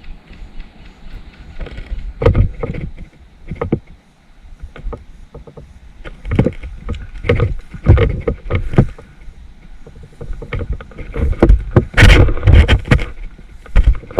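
Irregular footsteps and rustling as a person moves on foot through marshy undergrowth, with uneven strokes that come thicker and louder toward the end.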